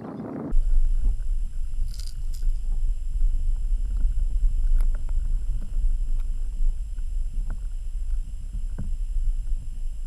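Sound from an underwater camera: after a brief stretch of open-air noise, an abrupt cut about half a second in to a steady, loud low rumble of water moving against the submerged camera. Over it runs a thin steady electronic whine, with a few faint clicks scattered through.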